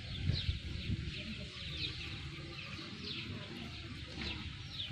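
Chickens peeping and clucking: a run of short, falling high-pitched peeps repeating about every half second, over a low rumble.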